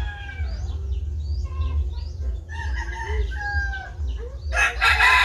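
Chickens clucking with short pitched calls, then a rooster crowing loudly near the end.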